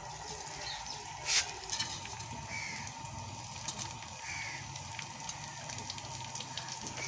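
Birds calling a few times, short arched calls, over a steady low hum, with a sharp click about a second and a half in and some lighter clicks after it.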